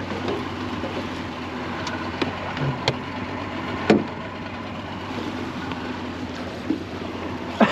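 A boat motor running steadily under a low hum, with a few short knocks about three and four seconds in.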